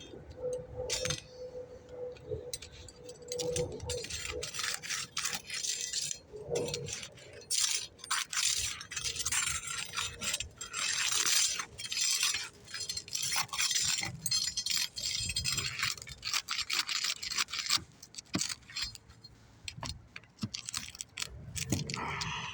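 Flat pry bar worked under asphalt roof shingles, with irregular scraping and metallic clicking as the bar rasps against the gritty shingle surface and pries at the seal strip.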